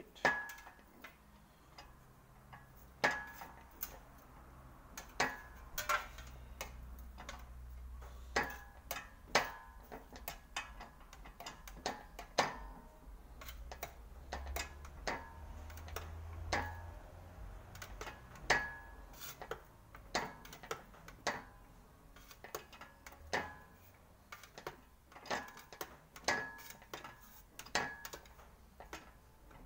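Steel quarter repair panel being rolled back and forth through an English wheel: irregular sharp metallic ticks and light clanks, about one a second, with a faint low rumble of the wheels in the middle stretch.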